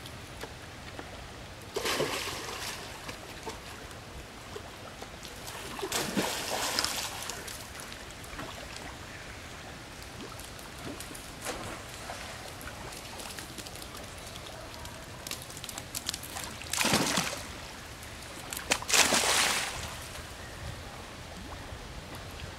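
Long-tailed macaques splashing as they swim and jump about in a pond: four short bursts of splashing, the last two close together, over a steady low hiss of water and open air.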